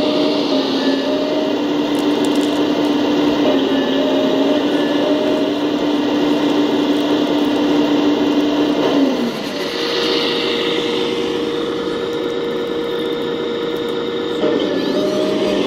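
Radio-controlled Cat 374D model excavator running with a steady motor whine. About nine seconds in the whine drops a little and settles on a different single tone. Near the end it returns to the first pitch.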